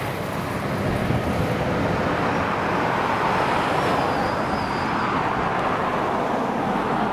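Road traffic passing close by: a van and other vehicles driving past, a steady rush of tyre and engine noise, with a faint high whine in the middle.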